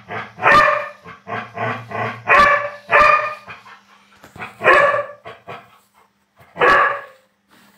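Young dogs, a Labrador puppy and a small fluffy dog, barking while they play: a quick string of short, high barks about every half second, several much louder than the rest, thinning out to a few single barks after about four seconds.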